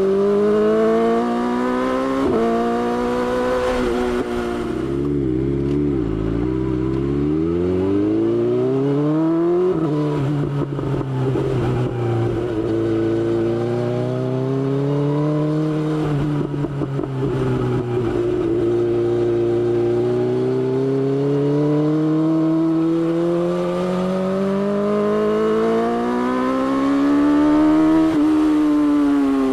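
BMW S1000XR's inline-four engine under way, its pitch climbing and falling with the throttle. It drops sharply at gear changes about two and ten seconds in, and slides down to a low point a few seconds in before pulling up again.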